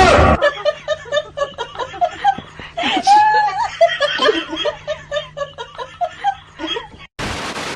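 A person laughing hard in rapid, repeated bursts over a steady low hum, with a short rush of noise at the very start and again near the end.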